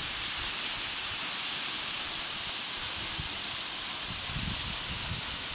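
Waterfall water rushing in a steady, even hiss. A few low bumps come in near the end.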